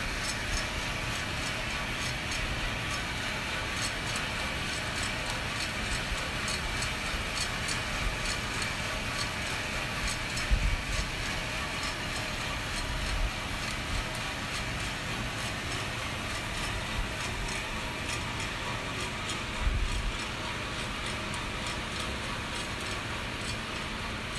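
Vina Roaster gas-fired drum coffee roaster running during a roast: a steady rush of burner and fan noise with a light, regular ticking about two to three times a second, and a few dull thumps.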